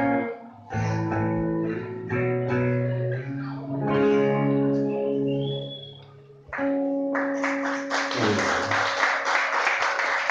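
Two guitars, one an acoustic-electric, play the closing chords of a song in short phrases, ending on a held final chord about six and a half seconds in. Applause breaks out about a second later.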